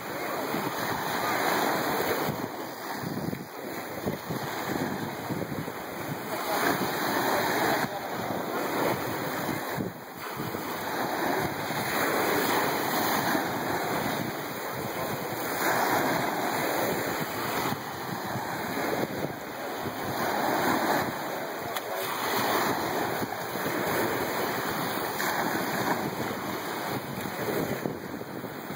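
Small surf breaking and washing up a sandy beach, swelling and easing every few seconds, with wind buffeting the phone's microphone.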